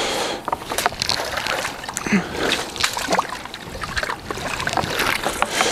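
Water splashing and sloshing at the waterside, with irregular small clicks and knocks.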